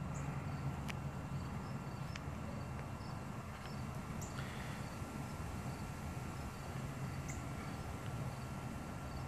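Outdoor garden background: a steady low hum with a faint constant high tone, and a few brief, faint high chirps scattered throughout.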